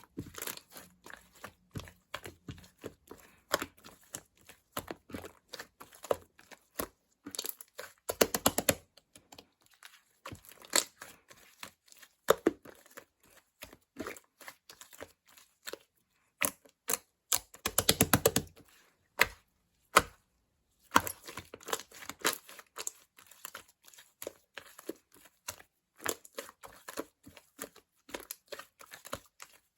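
Close-up crinkling and crackling of material being handled, with many small clicks. There are two short, rapid ripping runs, one about 8 seconds in and one about 18 seconds in.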